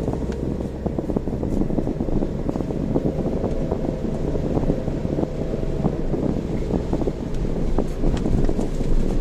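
Vehicle driving noise on a city road: a steady low rumble with wind buffeting and crackling on the microphone.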